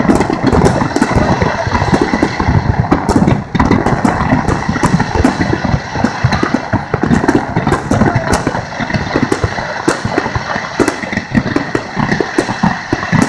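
Fireworks display: a continuous barrage of rapid bangs and crackling from shells and fountain effects firing in quick succession, over a steady low roar.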